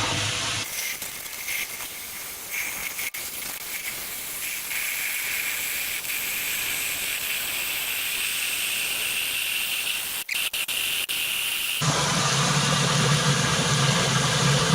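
Water pouring into a sewer ejector pump basin, a steady hiss. About twelve seconds in, the ejector pump motor kicks on with a steady low hum as the rising water lifts its piggyback float switch.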